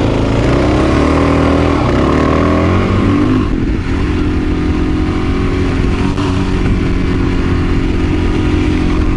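Dual sport motorcycle engine accelerating away on a gravel road. It climbs in pitch through a couple of gear changes in the first four seconds, then holds a steady pitch while cruising.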